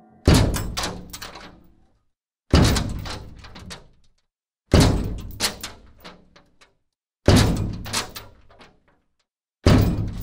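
Five heavy slamming impacts, evenly spaced about two and a half seconds apart, each a cluster of clattering knocks that echoes away over about a second and a half.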